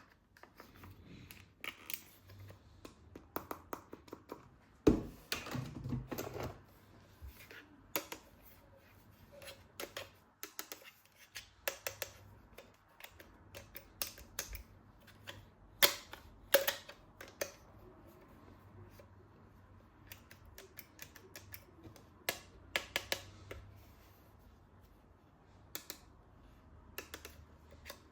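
Irregular plastic clicks, snaps and knocks of toy guns and their parts being handled, with the loudest knocks about five seconds in and again near the middle.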